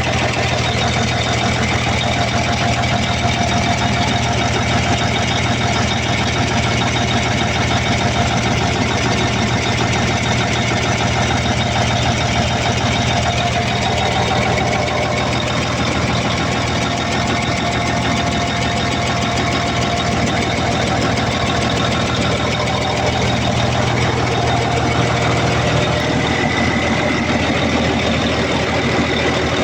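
Freshly overhauled Cummins QST30 V12 diesel engine running steadily at idle on test.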